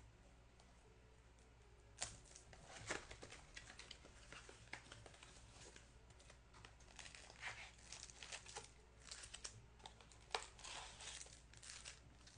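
Crinkling and tearing of the wrapping on trading card packs as they are handled and opened, in scattered soft rustles and sharp clicks that begin about two seconds in.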